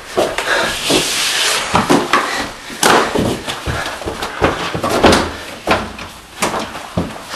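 Doors being opened and shut, a bifold closet door among them: a string of sharp knocks and thuds.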